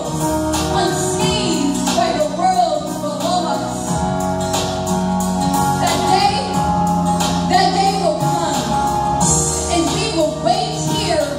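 A woman's voice singing into a microphone over background music with long held chords.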